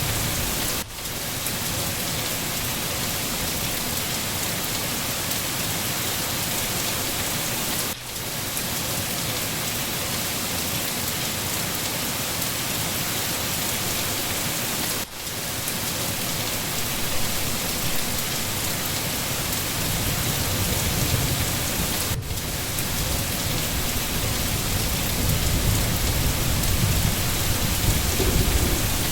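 Steady, heavy rain: a dense hiss across the whole range, broken by four short dips in level about seven seconds apart. A low rumble builds under the rain in the last third.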